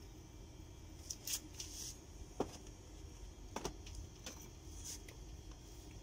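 Air handling unit with a faint steady low rumble, and about six short crackles and rustles from the fabric pocket filters as they collapse with the airflow dying away. The crackles cluster between about one and five seconds in.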